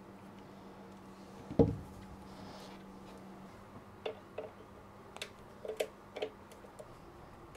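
Hands working a rubber cooling-water hose into place on a marine engine: one sharp knock about a second and a half in, then a run of light clicks and taps.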